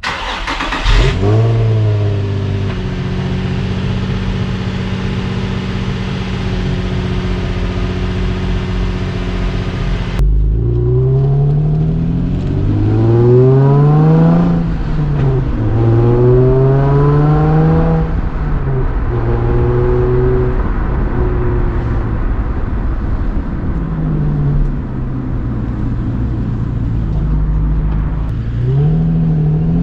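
Stock-exhaust Infiniti G35's VQ35DE 3.5-litre V6 starting with a brief flare, then idling steadily. After a cut near the ten-second mark it is revved again and again, each blip rising and falling in pitch. This is the car's stock exhaust note.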